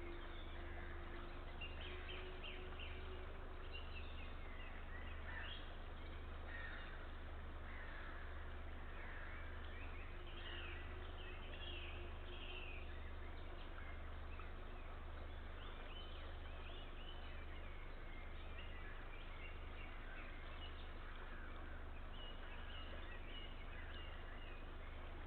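Small birds calling and singing in the background, with many short chirps scattered throughout, over a steady low hum.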